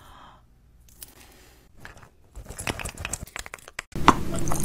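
Close-miked crinkling and crackling clicks starting about halfway in. Near the end, after a sudden jump in loudness, a steady low hum with sharp wet mouth clicks.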